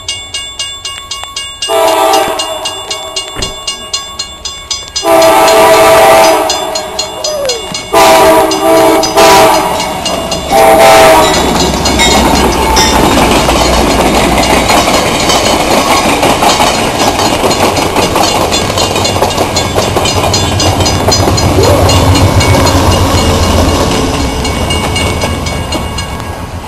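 Grade-crossing bell ringing in a steady rapid tick while an Amtrak diesel passenger train's horn sounds several loud blasts, the last ending about 11 seconds in. The train then runs through the crossing with a steady rush of wheel and rail noise over a low locomotive rumble.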